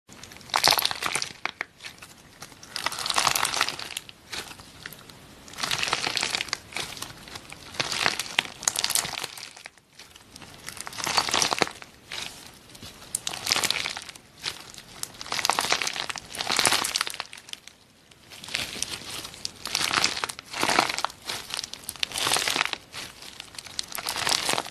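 Slime being squeezed and pressed by hand, crackling and popping in repeated bursts every two seconds or so.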